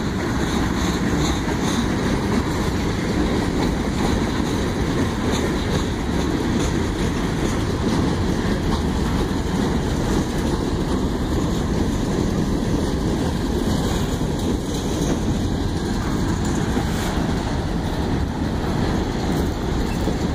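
A freight train's tank cars and covered hoppers roll past, giving a steady sound of steel wheels on the rails.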